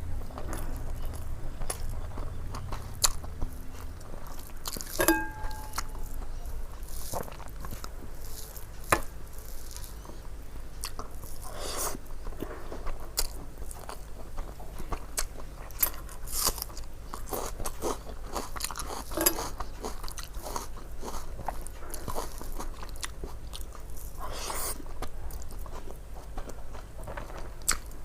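A person eating a rice meal: repeated biting and chewing, with crisp crunches and scattered sharp clicks.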